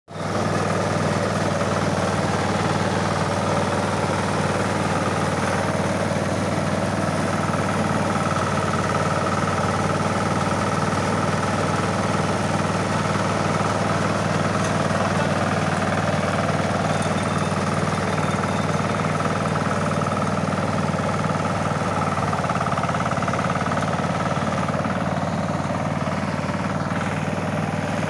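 Mini combine harvester running steadily while harvesting rice: a constant engine hum with a steady higher whine above it.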